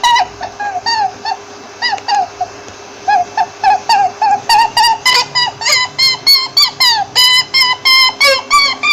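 Rabbit squeaking in a rapid series of short, high, arched squeaks, several a second, with a brief pause about a third of the way in. A faint steady hum runs underneath.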